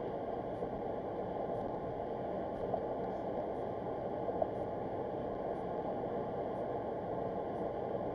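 Steady tyre and road noise inside the cabin of a moving car, an even low hiss.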